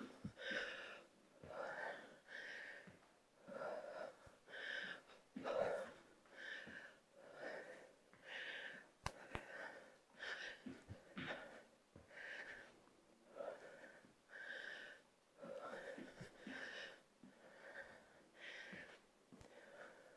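A woman breathing hard from exertion during lunges and jumping jacks, short breaths repeating about once a second. A few faint knocks, such as feet landing, come near the middle.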